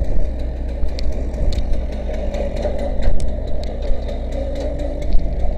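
A fire engine's motor running steadily, with scattered short clicks and knocks over it.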